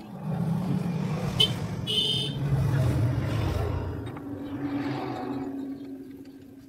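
A motor vehicle going past close by: a low engine rumble that comes up suddenly, holds for about four seconds and then fades away, with a short high-pitched squeal about two seconds in.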